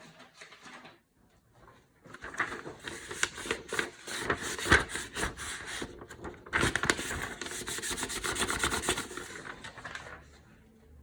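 A CPU being rubbed back and forth on a sheet of paper to wipe off old thermal paste: two long spells of quick scratchy rubbing strokes, with a short break in between.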